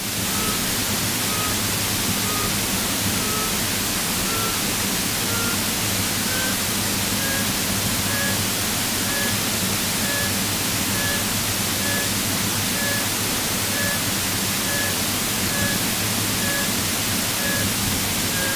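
Steady hiss of an aircraft's intercom and radio audio feed, with a short electronic beep repeating about once a second that rises slightly in pitch over the first several seconds, then holds steady.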